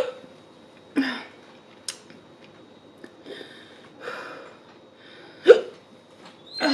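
A woman hiccuping: several short, sharp hiccups spaced a second to a few seconds apart, brought on by eating too fast.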